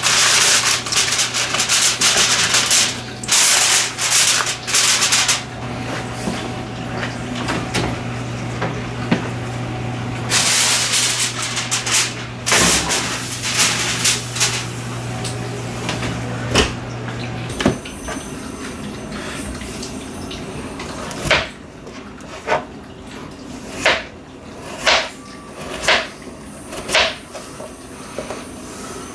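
Aluminium foil crinkling loudly as it is pressed around a baking pan, then the foil-covered pan being slid onto an oven rack with a knock. Later a knife cutting potato chunks on a plastic cutting board, about one sharp cut a second.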